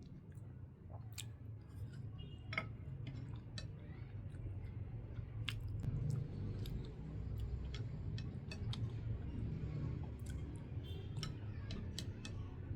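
A person chewing a mouthful of ramen noodles close to the microphone, with scattered short, sharp clicks throughout.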